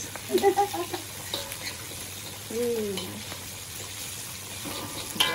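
Food sizzling steadily as it fries in hot oil in a steel wok, with a few light clicks of a spoon against the pan as it is stirred.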